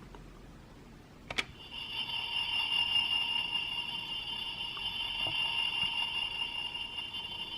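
A sharp click a little over a second in, then a steady, high, ringing electronic tone from the CSM OOO Driver toy belt's speaker, held without change.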